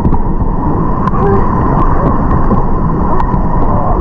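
Steady loud rushing of river rapids around an inflatable raft, mixed with wind buffeting a low-mounted action camera, with scattered faint short clicks.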